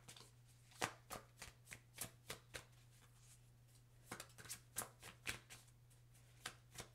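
A tarot deck being shuffled by hand: quick runs of soft card slaps and flicks, in bursts with short pauses between.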